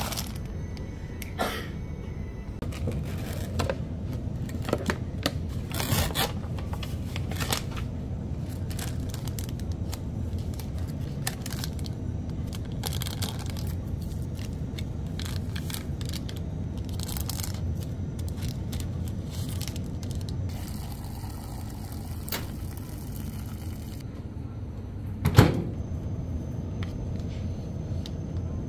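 Scattered clicks, scrapes and rustles of handling over a steady low hum, with one sharper knock near the end.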